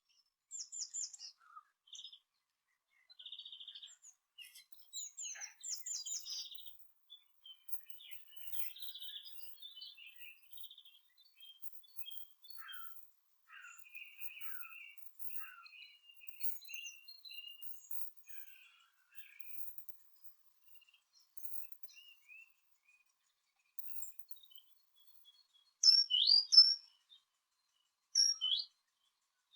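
Small garden songbirds chirping and twittering in short high calls and trills, with two loud, sharp calls near the end.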